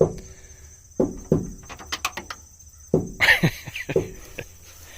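A steady high insect drone, with a series of irregular sharp knocks and crunches over it, several close together about three seconds in.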